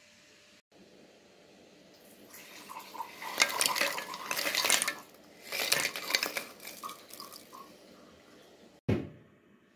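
Maria biscuits being tipped into a stainless-steel food chopper bowl, clattering and crackling against the metal in two bursts, then a single thump near the end.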